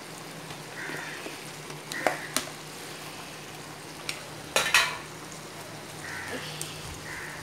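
Thick tamarind curry boiling hard in a cast-iron kadai, with a steady bubbling and spluttering. A few sharp clicks and one louder clatter about four and a half seconds in.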